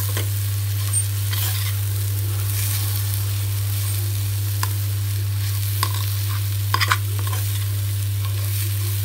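Coarse ivy gourd chutney sizzling as it fries in a kadai, while a metal spoon stirs and scrapes against the pan, with a few sharp clicks and a quick cluster of them about seven seconds in. A steady low hum runs underneath.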